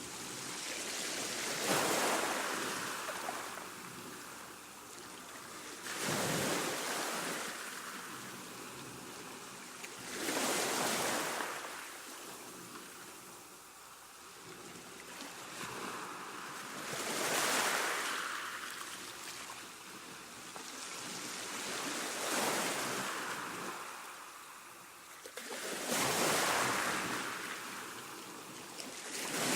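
Calm sea washing on a shore: gentle waves break and draw back every few seconds, each swell rising and fading away.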